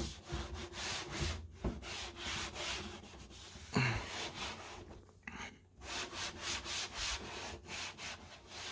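An alcohol wipe rubbed back and forth over the TV, a run of irregular wiping strokes, with a couple of short knocks.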